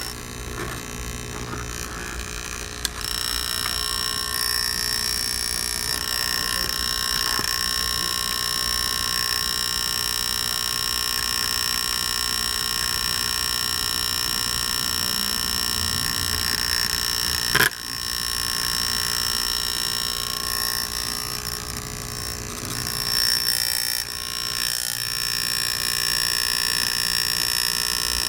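Small electric air compressor for an air mattress running steadily, a buzzy hum with several steady high tones, pumping air into the mattress. A single sharp click about two-thirds of the way through.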